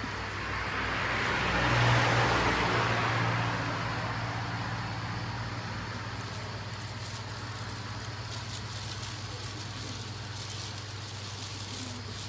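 A vehicle passing by: its noise swells, peaks about two seconds in and fades over the next couple of seconds, over a steady low hum.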